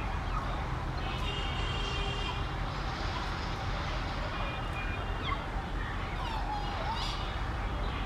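Common hill myna calling: short whistled notes from about a second in, then a few sliding, gliding calls in the second half, over a steady background rumble and hiss.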